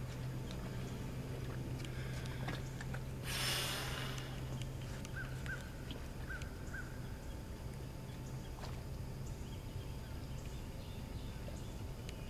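Birds chirping in short calls, several in quick pairs, over a steady low hum, with a brief rushing noise about three and a half seconds in.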